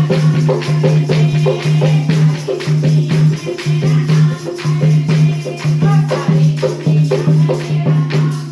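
Bhajan-style devotional music: a low beat pulsing about twice a second under rattling, clicky percussion and a melody line.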